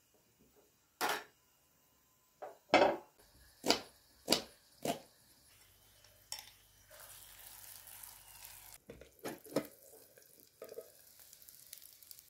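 Spoon and dishes clinking and knocking against bowls and a pan in a run of sharp strikes, then about two seconds of frying sizzle as a herb mixture is spooned into a pan of frying potato slices, then a few more clinks.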